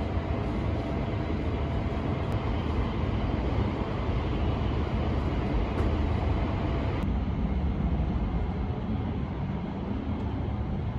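Steady running noise of an E6 series Shinkansen heard from inside the train: a low rumble with a rushing hiss over it. About seven seconds in the highest part of the hiss drops away and the rumble eases slightly.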